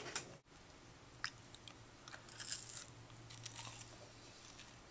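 A person chewing french fries close to the microphone: quiet, irregular crunching and mouth sounds over a faint steady low hum.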